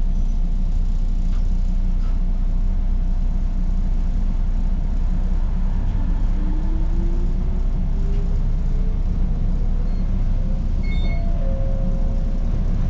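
Cabin of a Toyama Chiho Railway electric train: a steady low rumble, with a whine that rises in pitch from about six seconds in and then levels off, as the train pulls away and gathers speed.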